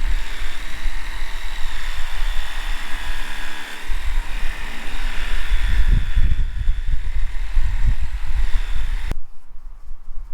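A steady mechanical drone with high whining tones over a low rumble, which swells around the middle and cuts off suddenly near the end.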